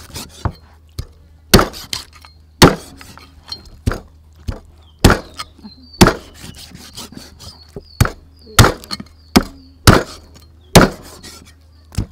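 Meat cleaver chopping through beef ribs and bone on a thick wooden chopping block: irregular heavy chops, about one a second, sometimes two in quick succession.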